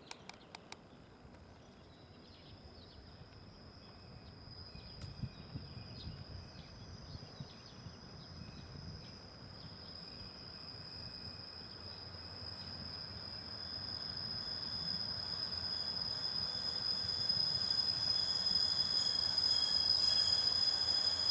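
KiHa 110 diesel railcar approaching, faint at first and growing steadily louder, with a steady high whine that strengthens as it nears.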